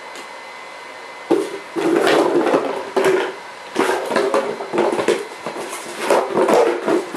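Neapolitan Mastiff puppy and adult dog scuffling on the bedding of a wire crate: irregular bursts of rustling, scrabbling and rattling that start about a second in.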